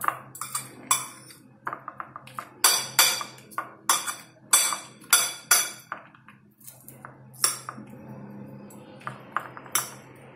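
Metal spoon clinking and scraping against a ceramic plate while mixing rice, in irregular sharp clinks.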